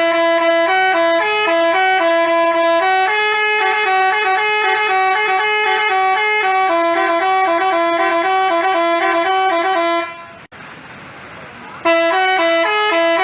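Telolet basuri musical bus horn playing a tune of stepping horn notes. About ten seconds in it breaks off for a moment, with a single click in the gap, then starts up again near the end.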